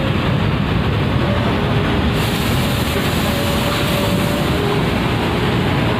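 Diesel engine of a large coach bus running as it rolls slowly past at close range, a steady heavy rumble. A steady high hiss sets in suddenly about two seconds in.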